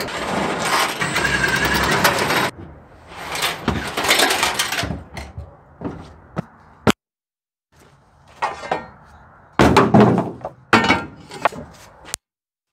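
Cordless impact driver hammering out the floor bolts of an aluminium truck toolbox: one run of about two and a half seconds, then a shorter run. Several sharp metal clunks and knocks follow in the second half.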